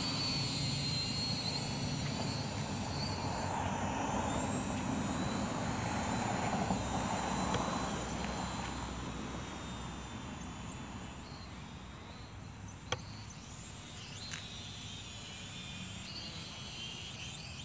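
MJX Bugs 2W quadcopter's brushless motors heard from below as a faint high whine that wavers in pitch, over a steady outdoor hiss. The hiss swells for a few seconds near the middle and fades again, with one short click later on.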